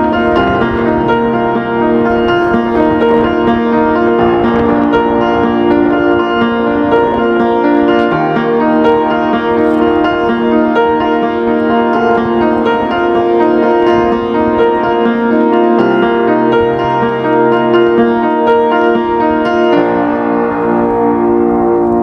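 Instrumental background music led by piano-like keyboard, with sustained chords changing about every four seconds.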